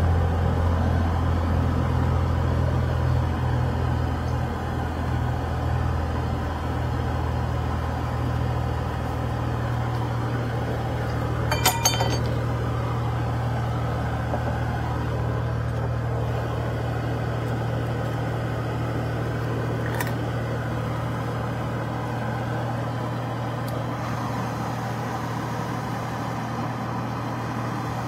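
A steady low rumble, with a quick run of sharp clicks about twelve seconds in and a single click near twenty seconds.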